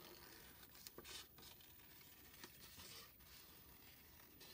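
Faint, scattered snips of scissors cutting through construction paper, with soft paper rustles as the sheet is turned.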